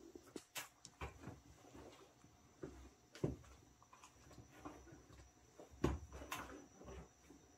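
Scattered soft rustles and light knocks as dogs move about on a quilt, with two sharper knocks about three and six seconds in.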